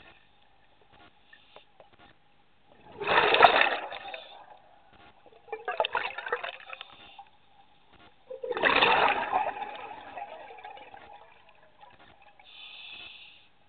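Open-circuit scuba regulator breathing underwater: three loud gurgling bursts of exhaled bubbles a few seconds apart, with a fainter, higher hiss of the regulator near the end.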